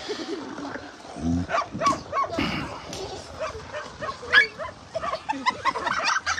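Hungry dogs crowding around dry food, making many short, irregular calls.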